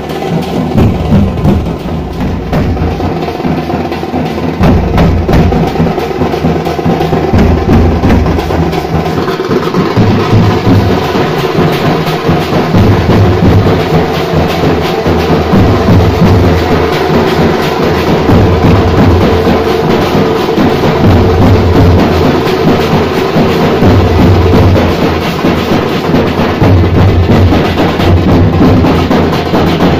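Loud drum-led music: heavy, pulsing bass beats and percussion over a sustained melody line, as played in a festival procession.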